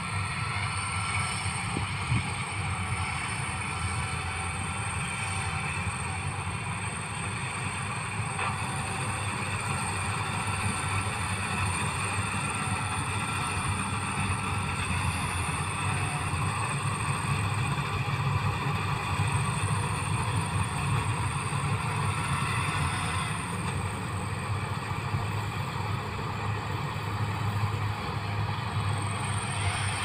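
Keong Turbo tracked rice combine harvester running steadily while harvesting, a continuous low engine drone with machinery noise that holds an even level throughout.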